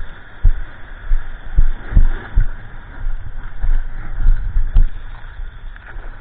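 Water slapping and sloshing against a 9-foot Ron Jon surfboard as it is paddled through small whitewater, picked up by an action camera mounted on the board. The slaps come as irregular, muffled low thumps, about ten of them, over a steady wash of surf hiss.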